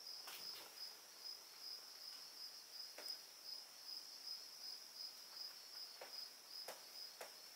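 Faint cricket chirping: a steady, evenly pulsed high trill, with a few soft clicks.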